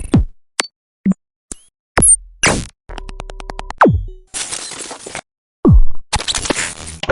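A string of short, separate synthesized sound effects with brief silences between them. Three deep falling-pitch drops, short high blips, a quick run of clicks and bursts of noise.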